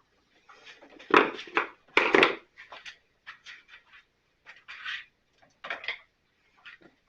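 Parts and tools being handled while a Stihl BR 600 backpack blower is taken apart: a string of short scrapes, rubs and knocks, the loudest about one and two seconds in.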